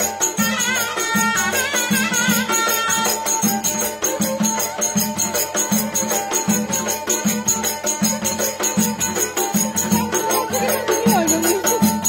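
Turkish folk wedding music from zurna and kemane over a steadily beating davul drum, with a rhythmic high rattle on top. The melody wavers for the first three seconds, then settles on one long held note.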